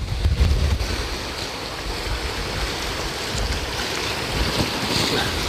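Sea waves breaking and washing against shore rocks, with wind buffeting the microphone.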